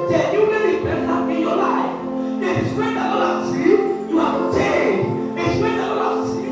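Church music: a keyboard holding steady chords under a congregation's many voices raised together.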